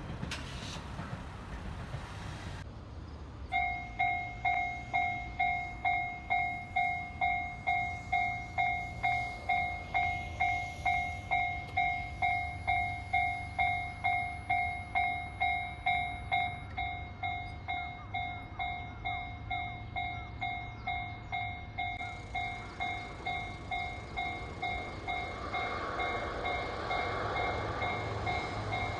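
Japanese railway level-crossing warning bell starting about three and a half seconds in and ringing a steady kan-kan, about two strokes a second. A low rumble runs beneath, and a rushing noise builds near the end as a train draws near.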